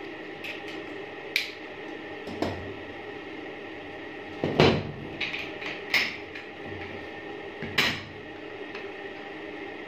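Shotgun metal parts being handled and fitted together on a wooden table, making a series of sharp clicks and knocks that are loudest about halfway through, over a steady background hum.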